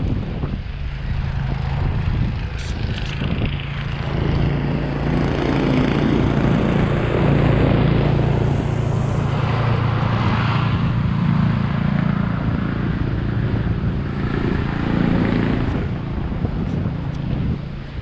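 Street traffic: a motor vehicle's engine hum building about four seconds in, holding for several seconds, then fading near the end.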